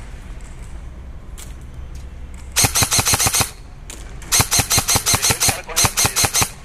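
Airsoft rifle firing three full-auto bursts of sharp rapid shots, about ten a second; the middle burst is the longest, about a second and a half.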